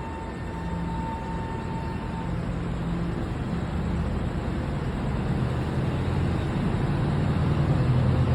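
Train at a station: a steady low rumble that grows gradually louder. A faint high tone stops about two seconds in.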